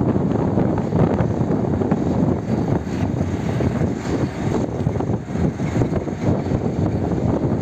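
SM31 diesel-electric locomotive running light past at close range, its V16 diesel engine running with a steady, loud, deep rumble.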